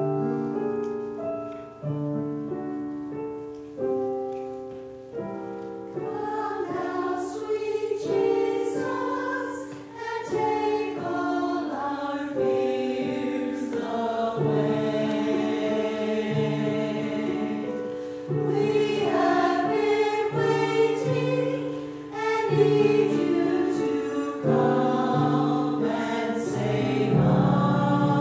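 A piano plays slow chords, one every couple of seconds. About six seconds in, a church choir comes in singing.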